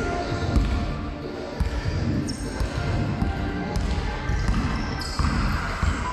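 Basketball being dribbled on a sports-hall floor, bouncing repeatedly as the player drives toward the basket.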